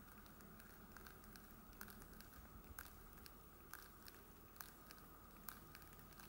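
Thin new lake ice and slush floes at the water's edge crackling and clicking faintly as they shift against each other, a sharp tick about once a second.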